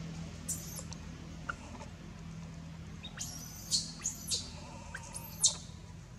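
A series of shrill, very high-pitched animal squeaks: one brief squeak at first, then a quick cluster of five or six, the last the loudest. A faint steady low hum runs underneath.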